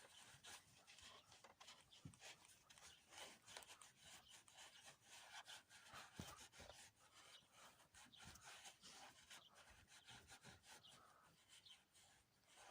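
Faint, repeated rubbing strokes of a rag wiping WD-40 and old grease off a car door check strap.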